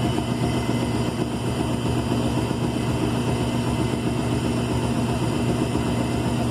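Electrolux LE05 washing machine running, with a steady motor hum.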